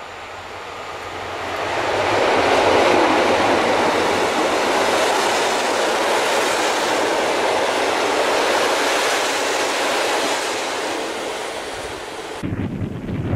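Passenger train hauled by an EP07 electric locomotive passing close by, its wheels running over the rails, building over the first two seconds, staying loud while the coaches go past, then fading. Near the end it cuts abruptly to wind buffeting the microphone.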